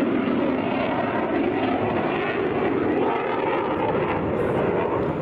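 F-16 Viper fighter jet's single jet engine heard from the ground as the aircraft flies overhead: a loud, steady rushing jet noise.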